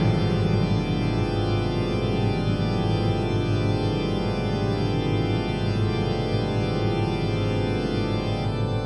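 Organ holding a sustained chord over a low rumble, at a steady level.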